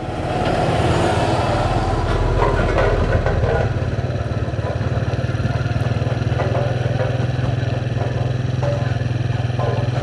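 Motorcycle engine running steadily on the move, with rushing road and wind noise. The sound gets louder about half a second in.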